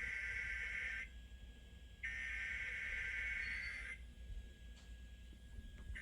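Emergency Alert System SAME header data bursts from a radio receiver: buzzy, warbling digital tones in two bursts of about two seconds each, a second apart, the second ending about four seconds in. This is the coded header that opens an EAS test message. A faint steady whistle runs beneath.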